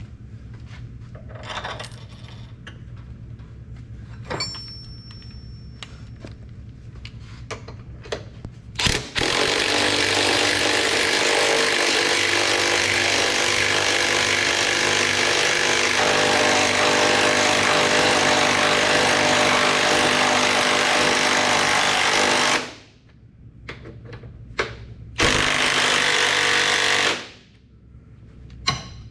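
Power tool running hard in a long burst of about thirteen seconds, then a shorter burst of about two seconds, each winding down when released; light clicks and handling knocks come before it.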